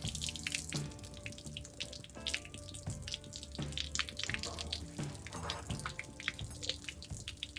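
Water spattering and dripping from a leaking PVC pipe, over background music.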